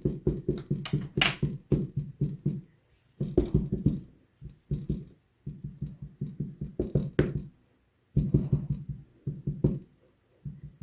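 StazOn ink pad dabbed again and again onto a clear photopolymer stamp mounted on an acrylic block, to ink it: quick runs of soft plastic taps, several a second, with short pauses between the runs.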